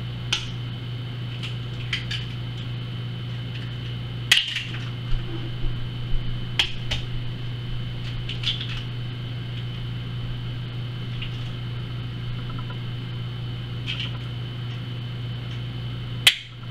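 Eggs being cracked into a bowl of ground meat, their shells tossed into a sink: scattered sharp clicks and knocks, bunched about four to seven seconds in, over a steady low hum.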